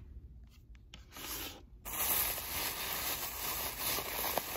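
Thin plastic carry-out bag rustling and crinkling as it is handled around a foam takeout box. A short rustle comes about a second in, then continuous crinkling from about two seconds in.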